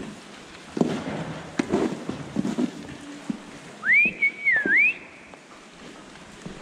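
Stall scraper knocking and scraping over the cubicle bedding a few times, then, about four seconds in, a loud short whistle by a person that rises, dips and rises again, as a cow is being moved along.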